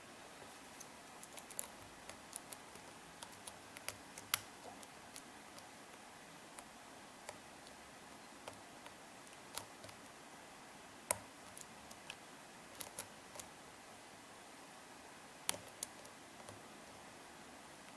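Lock pick clicking against the pin stacks inside a Wilson Bohannan padlock during single-pin picking under tension: sparse, irregular sharp clicks over a faint hiss.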